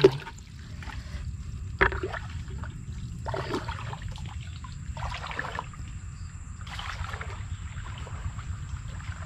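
Water splashing and sloshing in short bursts about every second and a half, over a steady low rumble.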